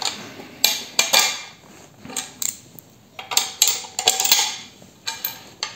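Irregular metallic clinks and clatter of steel bolts being fitted through the mounting brackets of an electric motor on a welded steel-angle frame, with the sharpest knocks about a second in and another cluster past the middle.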